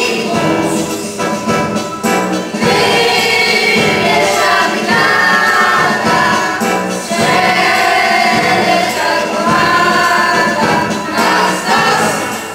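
A mixed choir of children and young people singing together.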